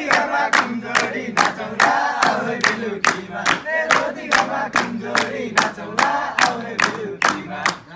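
Group of men singing a Nepali dohori folk song together, with steady hand clapping about three times a second.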